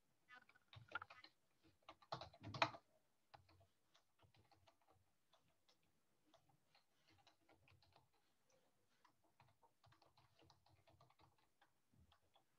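Typing on a computer keyboard: a cluster of louder keystrokes in the first three seconds, then scattered faint key clicks.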